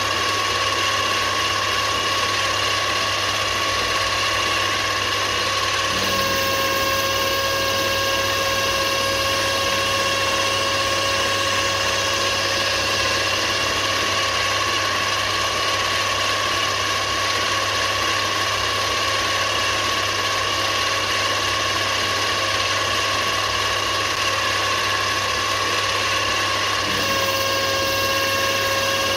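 Mini lathe running under a home-made power feed, a small electric motor turning the leadscrew so the carriage traverses: a steady motor hum and whine. Its tone changes about six seconds in and again near the end.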